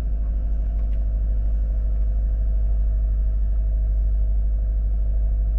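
2018 Hyundai Tucson's engine idling steadily, just started without trouble on a freshly installed battery.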